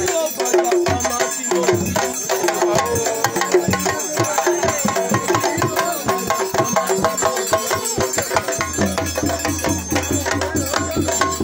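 Drums beaten in a quick, steady rhythm, with voices singing over them.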